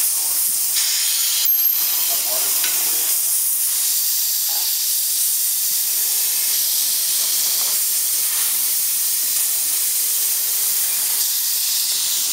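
15-inch-gauge live steam locomotive hissing steadily as it vents steam.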